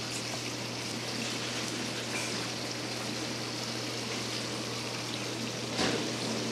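Hot cooking oil sizzling steadily in a large frying pan, an even hiss over a low steady hum, with a brief louder burst near the end.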